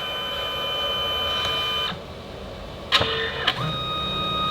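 Canon Selphy CP1200 dye-sublimation photo printer running: a steady motor whine that stops about two seconds in, two clicks about a second later, then the whine starts again.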